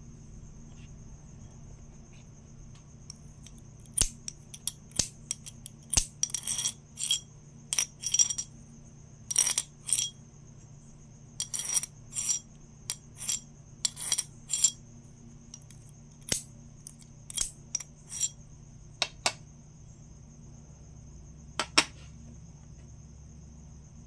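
A small metal piece tapped and scraped against a large copper coin marked East India Company one anna 1818: irregular sharp metallic clicks with a brief ring, in clusters over most of the span, the last ones near the end.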